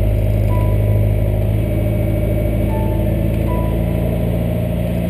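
Sailing yacht's inboard engine running steadily under way, with a few short high beeps over it.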